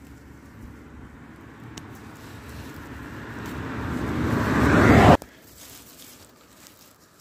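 A vehicle approaching, its rushing noise growing steadily louder for about five seconds and then cut off abruptly.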